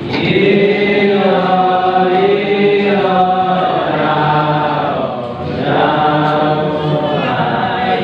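Group of young men singing a praise hymn in the Nduga language, unaccompanied, in long held notes, with a short break for breath about five seconds in.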